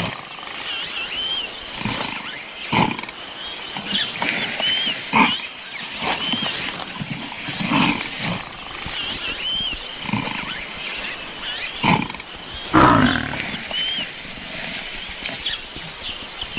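Lions snarling and growling in short, loud bursts about once a second, with a longer, louder snarl about thirteen seconds in, over faint short high chirps.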